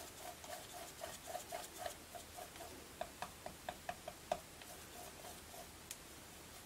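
Faint paintbrush strokes on a painted wooden board, a soft rhythmic swish about four to five times a second as the brush blends acrylic paint, with a few light ticks of the bristles in the middle.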